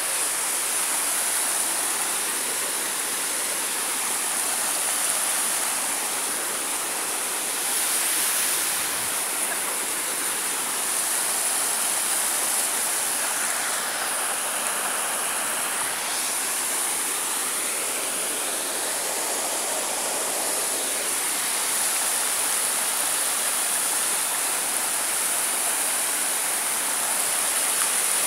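Rushing water of a mountain stream and waterfall: a steady, unbroken hiss.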